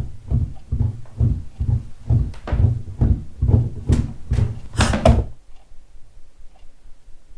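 Rapid, regular low thumps, about three a second, that stop abruptly about five seconds in. After them a clock ticks faintly, about once a second.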